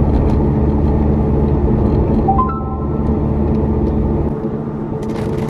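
Steady engine and road rumble of a car heard from inside the cabin while driving. About two and a half seconds in, a short three-note chime rises in pitch. The low rumble drops away about four seconds in.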